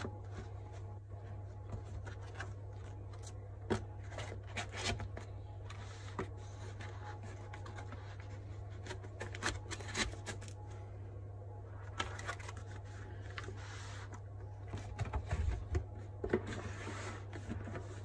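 Scattered clicks, taps and rattles of a metal CO2 gel blaster pistol and its parts being handled, with small clusters of clicks now and then, over a steady low hum.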